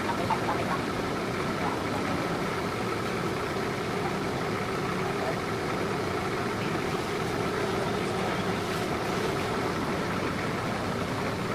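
An engine idling steadily, with an even drone and no change in speed.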